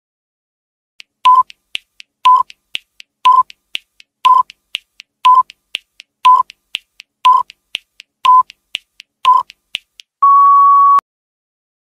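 Quiz countdown timer sound effect: a short electronic beep once a second, about nine in all, with a light tick halfway between beeps, ending in one longer, slightly higher beep as the timer runs out.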